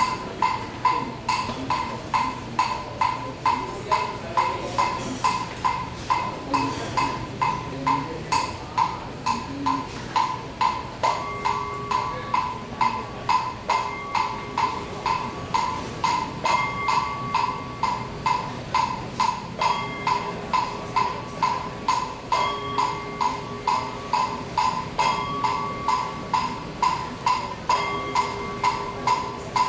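Temple wooden fish (muyu) struck at a steady beat, about two strikes a second, each a short hollow knock. From about eleven seconds in, held tones sound along with it.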